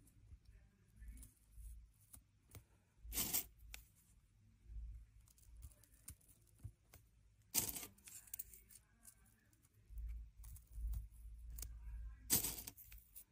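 Dry sunflower seeds handled and pressed one at a time into a raw potato: faint ticks and rustles of the seed shells, with three short, louder rattles spaced about four to five seconds apart.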